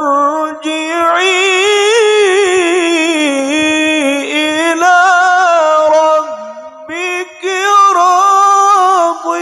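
A male qari reciting the Quran in a slow, melodic style: long drawn-out phrases with wavering, ornamented pitch. There is a short breath pause about six to seven seconds in.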